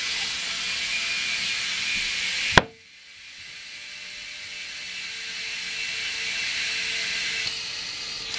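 Compressed air hissing through an air chuck into a Yamaha FZR1000 rear motorcycle tire. A little over two seconds in comes a single sharp pop as the tire bead snaps onto the rim seat. After the pop the air hiss returns quieter and builds steadily.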